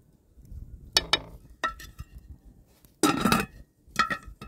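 Wooden spatula knocking against an aluminium cooking pot, then the pot's aluminium lid clattering into place, followed by a few more knocks near the end, each with a short metallic ring.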